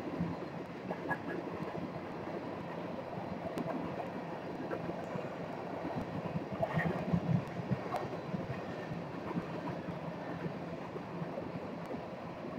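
Empty steel coal cars of a freight train rolling past: a steady rumble of wheels on rail with a few faint knocks, a little louder about seven seconds in.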